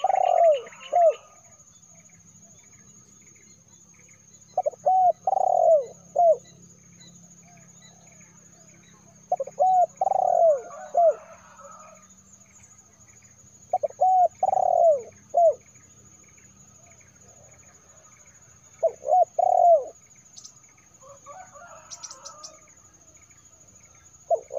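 Spotted dove cooing: five phrases of three or four deep, arched coos, one about every five seconds. A faint steady high-pitched tone and faint chirping run underneath.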